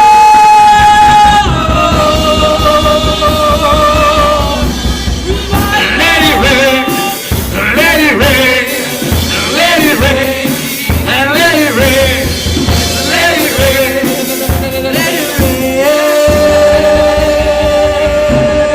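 Live worship music: a voice sings long held notes and wavering runs over a steady band accompaniment.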